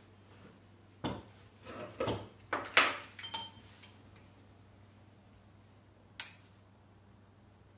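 Kitchen clatter: a spoon, small glasses and a plastic canister handled and set down on a counter, making a quick run of clinks and knocks in the first few seconds, one with a short ring, then one more sharp clink about six seconds in.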